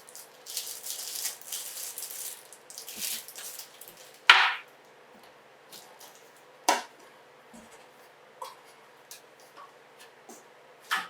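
Packaging rustling as a boxed thickness planer is unpacked and handled, followed by a few sharp knocks, the loudest about four seconds in.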